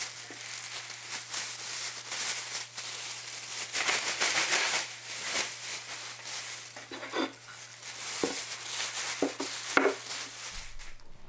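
Thin black plastic bin bag rustling and crinkling as it is pulled and bunched over a wooden board, with a few light knocks in the last few seconds.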